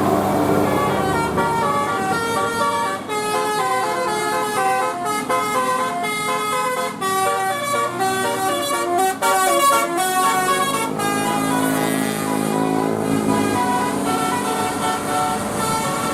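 Bus telolet basuri musical horn playing a fast tune, a quick run of short stepped horn notes.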